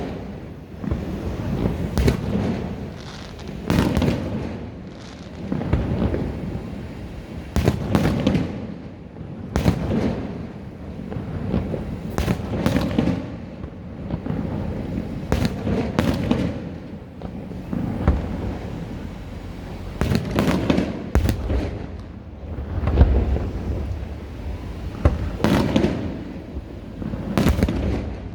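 Aerial firework shells bursting one after another in a display. Sharp bangs come every second or two, each trailed by a low rumbling echo.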